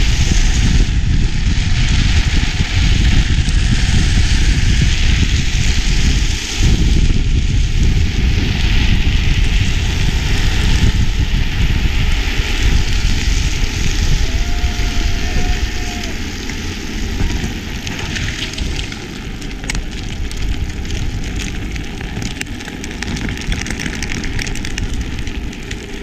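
Heavy wind buffeting on the handlebar-mounted action-camera microphone over the rumble and hiss of drift trike wheels rolling and sliding on asphalt during a fast downhill run. The noise eases in the second half as the trike slows.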